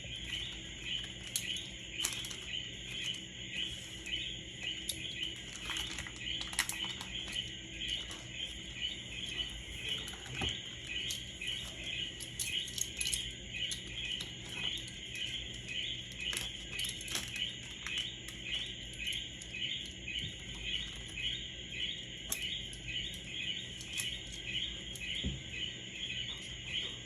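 Steady, rhythmic high-pitched chirping from animals, repeating evenly one or two times a second, with a few faint clicks and taps here and there.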